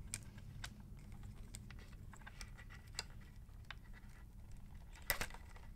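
Faint scattered clicks and rattles of plastic wiring connectors and cables being handled and pulled apart under a KTM Duke 390's tail unit, with a louder brief clatter about five seconds in, over a low steady hum.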